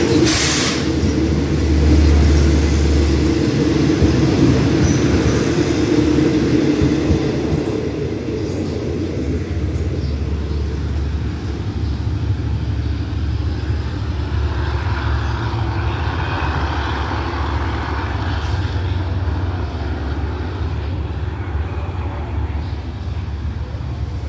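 Express passenger train of Daewoo coaches pulling out of a station: a rolling rumble of wheels on rail that slowly fades as the train draws away. A brief sharp burst of noise comes about half a second in.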